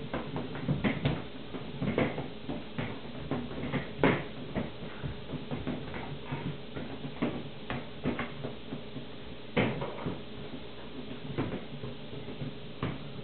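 Irregular soft thumps and knocks from a small child dancing with a balloon, batting it about and stepping on a wooden floor. A few louder knocks stand out, about four and nine and a half seconds in.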